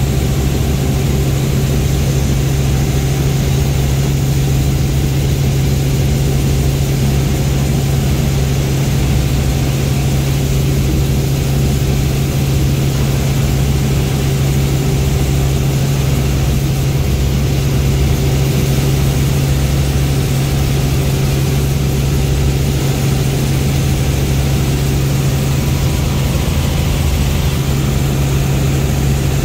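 Helicopter cabin noise: the steady, loud drone of the engine and rotor in flight, with a constant low hum and an even rush above it that does not change.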